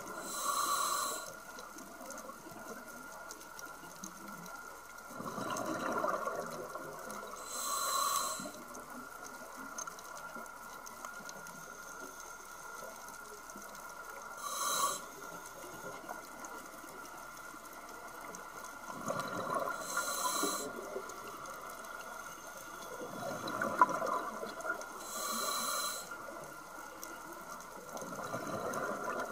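Scuba diver breathing through a regulator underwater: a short hissing inhale through the demand valve about every five to seven seconds, alternating with the bubbling rush of exhaled air.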